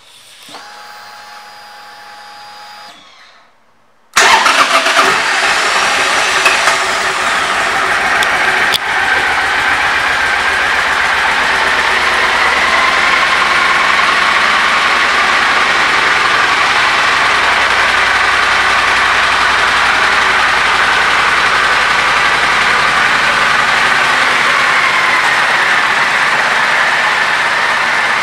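A faint whine, then about four seconds in the 2014 Triumph Thunderbird LT's 1700 cc parallel-twin engine starts and settles into a steady idle.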